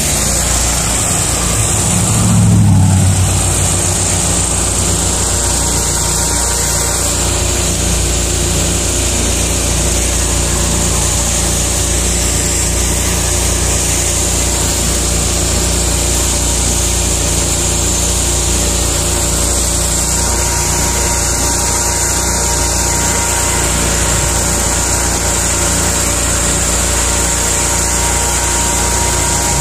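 Riding lawn mower engine running steadily, with a brief low swell about two to three seconds in.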